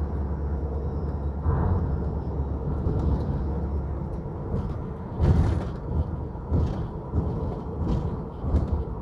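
Car engine hum and road noise heard inside the cabin while driving. Several dull thumps come from about five seconds in, the first the loudest.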